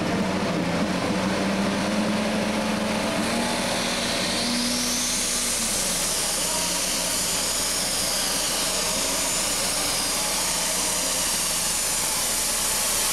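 Super stock pulling tractor's turbocharged engine running at full throttle as it pulls the sled down the track. Its engine note climbs over the first few seconds, and from about four seconds in a high whine rises and falls above it.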